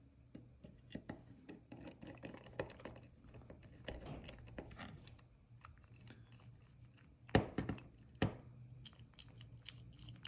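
Small metal clicks and scratching as a precision screwdriver bit turns the pocket clip screw into a Demko AD20 folding knife's handle, with two sharper clicks about a second apart past the middle.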